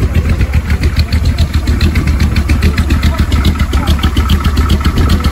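Chevrolet 400 cubic-inch V8 engine of a hot rod idling steadily, loud and low-pitched with an even pulse.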